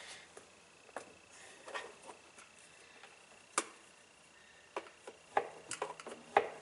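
Small hand tool jabbing and scraping at a stuck washing-machine washplate while working a shoestring under it: irregular light clicks and knocks, with a brief cluster of them near the end.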